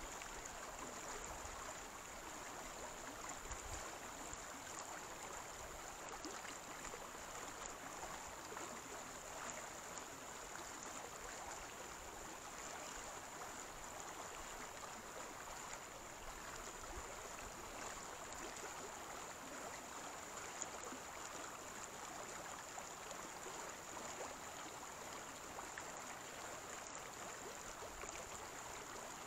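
Steady rush of river water flowing past the wading angler.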